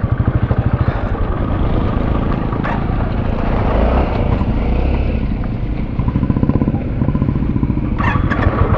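Royal Enfield Classic 350's single-cylinder engine thumping at low revs while riding up a rocky dirt trail. The beat is clear at first, smooths out in the middle and comes back strongly about six seconds in.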